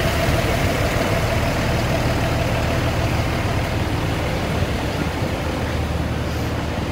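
A large vehicle's engine idling: a steady low rumble, with a faint steady hum over it that fades after the first few seconds.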